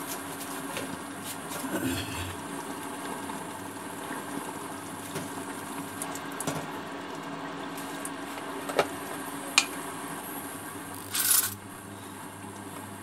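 Induction cooktop running with a steady hum, broken by a few sharp clicks and a brief hiss about eleven seconds in.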